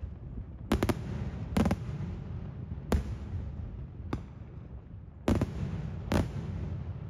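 Daytime aerial fireworks shells going off in a string of sharp bangs at uneven intervals, some in quick pairs, over a steady low rumble.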